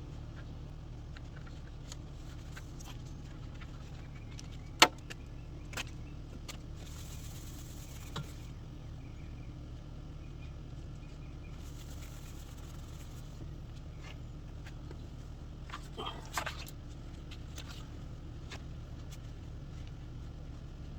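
Work noises while cleaning a Honda Odyssey's sliding-door roller parts: a sharp click about five seconds in, a few lighter knocks, two short hisses and a brief scrape, over a steady low hum.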